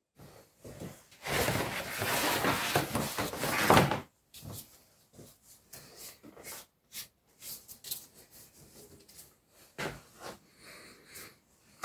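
Rustling and handling noise for a few seconds as a vinyl fender cover is dragged across the car's cowl, followed by scattered light clicks and knocks as a gloved hand works in the engine bay.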